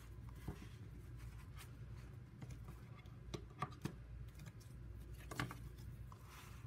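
Faint rustling of paper and card being shuffled and rearranged by hand on a wooden table, with scattered light taps and knocks as notebooks and papers are set down, over a low steady hum.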